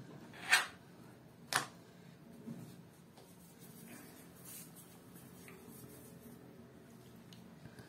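Two sharp clicks about a second apart: a kitchen knife knocking against the pastry board as dough is cut and the knife set down, then faint room tone.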